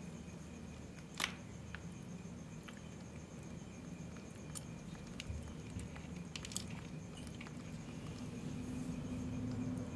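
Faint clicks and light taps of a metal spoon against a foil candy cup as a baby macaque is spoon-fed small candies, the sharpest click about a second in, with a few more scattered through. A steady low hum runs underneath.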